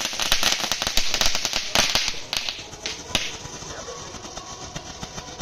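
Ground fireworks crackling: a rapid, irregular run of small sharp pops and cracks that dies down about three seconds in.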